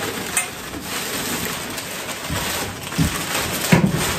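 Packing paper rustling and crinkling as a cardboard box is dug through and unpacked, with a few soft knocks.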